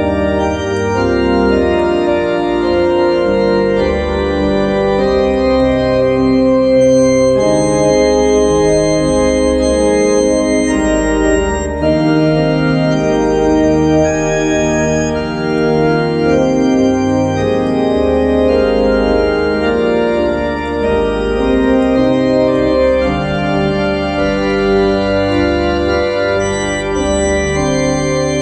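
Organ playing slow, sustained chords over a low pedal bass, the harmony changing every second or two, with some chords held for several seconds.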